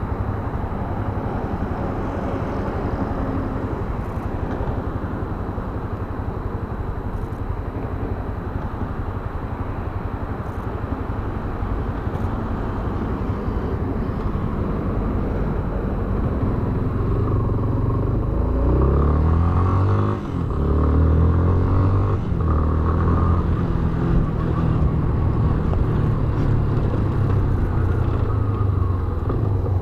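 Yamaha Fazer 250 BlueFlex motorcycle under way, with wind and road noise. Past the middle the engine note rises and grows louder as it accelerates, with two short dips, then pulls on.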